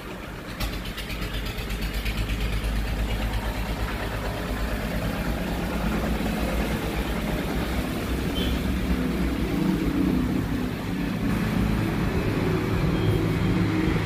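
A steady, low engine rumble that comes in about half a second in and slowly grows louder.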